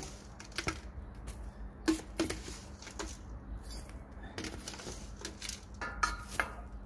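Scattered light knocks and clicks, a few a second at most, from a plastic bucket of wood ash being handled and shaken over a balcony planter, with a denser cluster of rattling about six seconds in.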